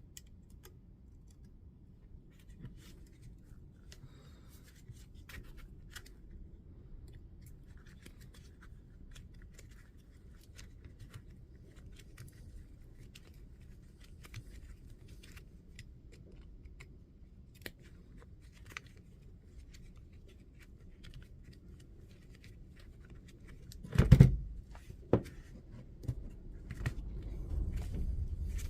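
Faint small clicks and scrapes of hand work on a DeWalt DCS355 oscillating multi-tool's plastic housing and blade release lever as the lever is worked off. A single loud knock comes near the end, followed a second later by a lighter one.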